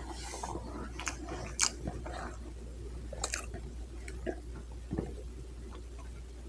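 A person chewing food close to the microphone, with scattered short wet mouth clicks and smacks.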